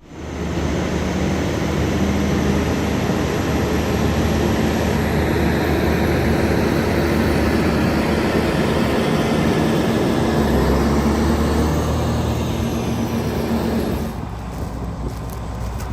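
Big New Holland T9.670 HD tractor's six-cylinder diesel running under load while pulling a Bourgault air drill through the field, a loud, steady machine noise. It drops somewhat in level about two seconds before the end.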